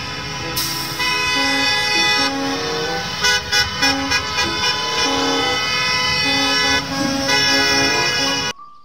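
School bus horns honking as a line of buses pulls out, several horns sounding at once and overlapping, with short toots a few seconds in.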